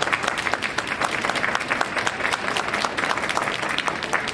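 Crowd applauding: dense, steady hand-clapping.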